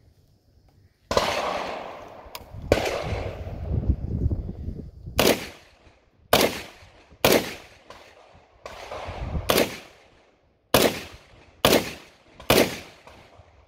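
About a dozen single shots from a .308 PTR semi-automatic rifle, fired at a steady pace of roughly one a second, each with a short echoing tail.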